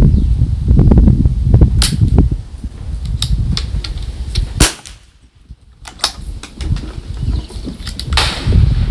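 Anschutz 1761 .22 LR bolt-action rifle firing: one sharp crack about halfway in, with several lighter clicks around it. Wind buffets the microphone with a low rumble throughout.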